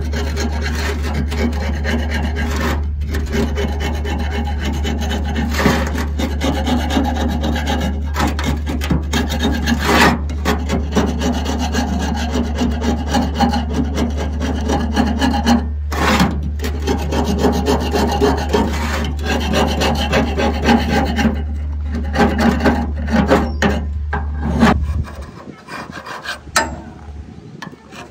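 Rough, rasping scraping as rust is cleaned off the parts of a seized water pump, a long run of irregular strokes over a steady low hum. The hum and the scraping stop about 25 seconds in.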